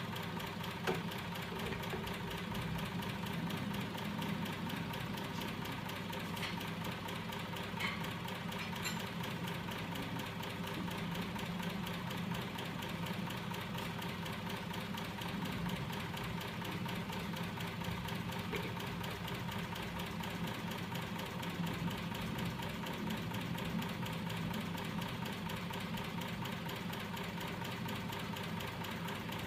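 Homemade magnetic crank mechanism running steadily, driven by small 12 V DC electric motors: a continuous mechanical hum with a fast, even knocking rhythm from the moving linkage.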